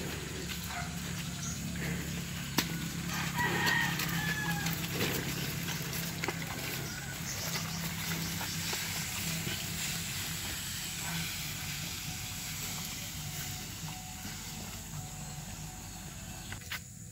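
A rooster crows once about three and a half seconds in, over a steady low hum and scattered light clicks.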